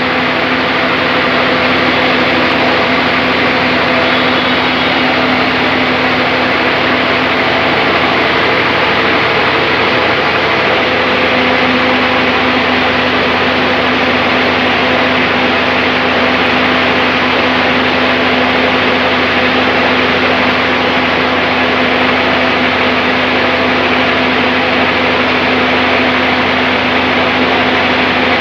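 Sawmill band saw machine running steadily: a loud, even mechanical noise with a constant hum.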